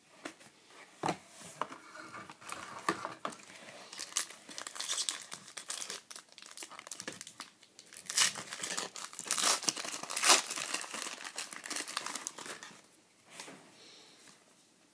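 Foil wrapper of a trading-card pack being torn open and crinkled by hand: a long run of irregular crackling rips, loudest past the middle and dying away near the end.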